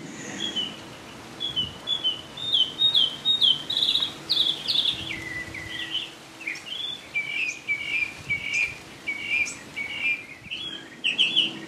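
Songbirds singing: a long run of short, clear whistled notes repeated a few times a second, many sliding downward, changing to a lower repeated phrase about halfway through.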